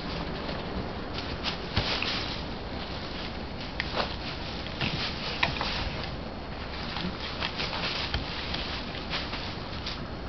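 Tissue paper rustling and crinkling in irregular bursts as a cat paws, bites and drags it about.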